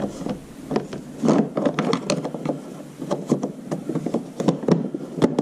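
Plastic scooter body panel being fitted into place by hand: a run of irregular knocks, clicks and scraping rubs of plastic against plastic.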